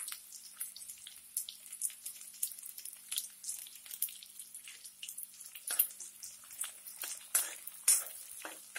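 Chopped onion and garlic cloves frying in hot oil in a metal kadhai: a steady crackling sizzle with many sharp little pops. In the second half a spoon stirs them, adding a few louder clicks and scrapes against the pan.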